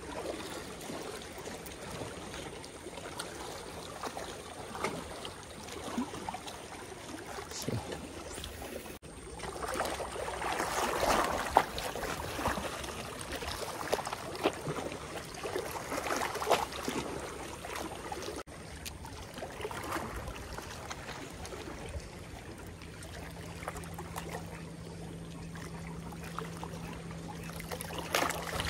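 Small waves lapping and splashing against shoreline rocks, with wind on the microphone.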